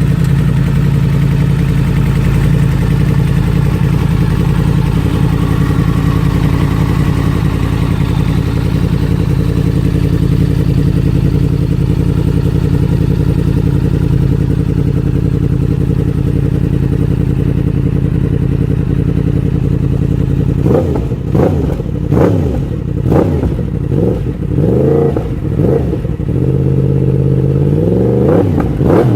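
Yamaha MT-10's crossplane inline-four idling steadily through an Akrapovic exhaust, then after about twenty seconds blipped in a quick run of short revs, each rising and dropping straight back, before returning to idle near the end.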